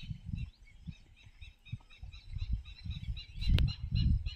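Small birds chirping rapidly and continuously in high, short notes, over low bumps and rustles close to the microphone, with one sharp click about three and a half seconds in.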